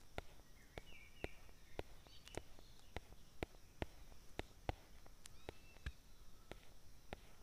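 Faint background sound: irregular sharp clicks, about two or three a second, with a few faint bird-like chirps and a steady high hiss.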